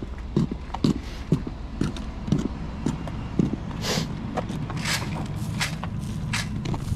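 Brisk footsteps, about two steps a second, for the first three and a half seconds, then a series of short hissing swishes. A steady low rumble of wind on the microphone runs underneath.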